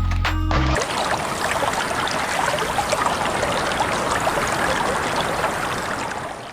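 A short tail of background music, then a steady rush of water thick with small splashes and drips, which fades out at the very end.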